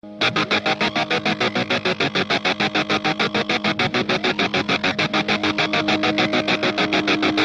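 Added background music: a fast, evenly pulsing note, about seven or eight pulses a second, over held steady tones, slowly growing louder as a build-up.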